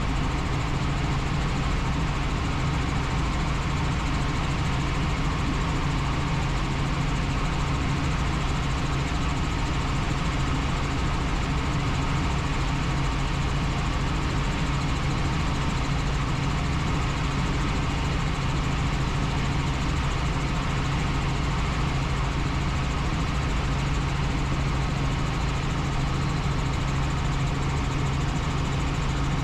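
Helicopter running steadily in flight: a continuous engine and rotor drone with a strong constant low hum, unchanging throughout.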